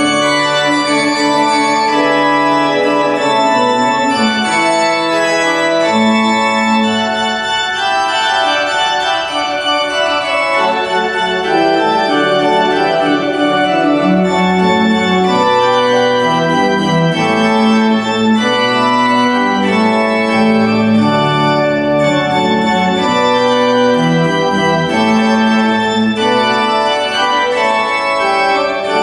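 Church organ playing a piece of sustained chords and a moving melody, at a steady level, typical of a recessional.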